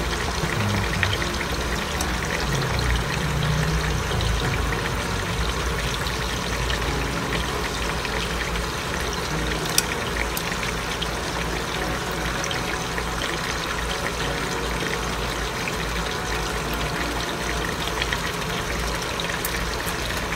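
Chicken breast pieces frying in shallow oil in a nonstick pan, sizzling steadily. A few sharp clicks of metal tongs against the pan come as the pieces are moved, one of them about ten seconds in.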